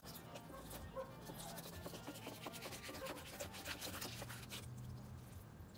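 Fillet knife slicing the skin off a red snapper fillet, its blade scraping along a plastic cutting board: faint, irregular rubbing with many small scrapes.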